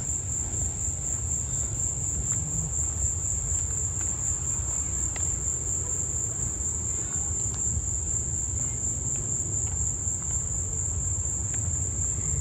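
Insects calling in one steady, unbroken high-pitched buzz, over a low steady rumble.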